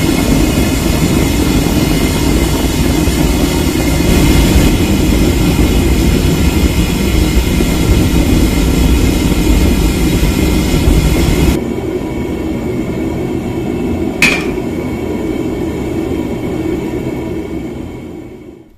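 Homemade gas forge's burner running loud and steady, flames roaring from the forge mouth while a blade heats for hardening. The roar drops a little about two-thirds of the way through. A single sharp metallic clink rings out shortly after, and the sound fades away at the end.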